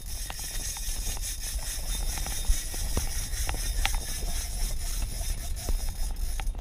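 An ice-fishing rod's reel being worked, giving scattered light clicks and ticks while a large lake trout is played through the hole, over a steady low rumble and hiss.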